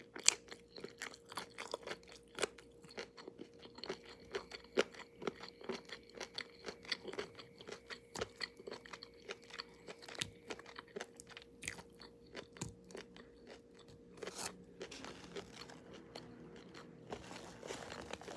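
A person chewing crunchy food close to the microphone: a quick run of sharp crunches, two or three a second, thinning out near the end.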